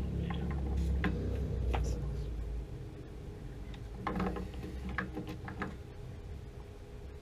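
Metal wrench working a threaded fitting on a water heater's gas control valve: scattered sharp metallic clicks and knocks, several close together about four to five seconds in, over a steady low hum.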